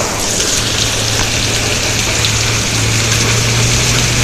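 Rain pouring down: a loud, steady hiss with scattered drop ticks. A low steady hum comes in about half a second in and runs under it.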